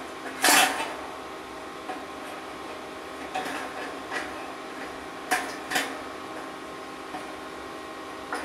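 Sharp metal clinks and knocks while the retaining tabs on a dryer heating element's terminals are bent in: a loud clank about half a second in, a few lighter clicks, then two more knocks close together around five and a half seconds, over a steady faint hum.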